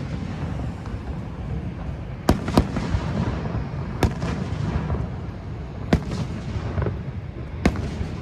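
Fireworks bursting overhead: about five sharp bangs, irregularly a second or two apart, over a steady low rumble.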